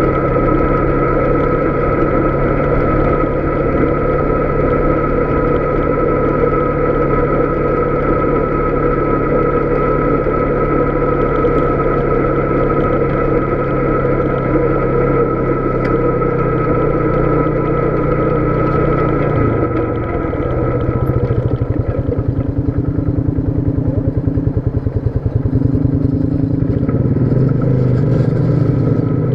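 Polaris Sportsman 570 ATV's single-cylinder engine running steadily under way on a rocky dirt road. A little after twenty seconds in, the engine note drops to a lower, evenly pulsing beat.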